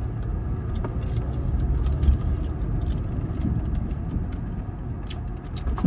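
Steady low rumble of road and engine noise inside a moving car's cabin, with a few faint clicks and rattles.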